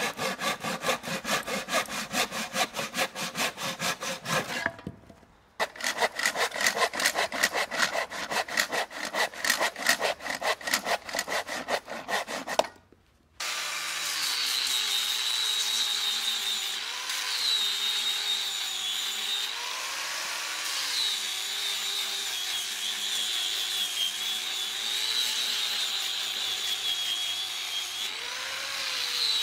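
Hand saw cutting across a wooden board in quick, even strokes, with a short break about five seconds in. About halfway through, an electric angle grinder fitted with a sanding disc runs steadily, sanding the board. Its whine dips in pitch each time it is pressed into the wood.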